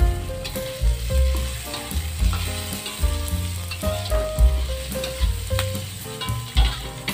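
Sliced carrots stir-frying in oil in a wok, a steady sizzle with the metal spatula scraping and clinking against the pan now and then. Background music with a deep beat and held notes plays underneath.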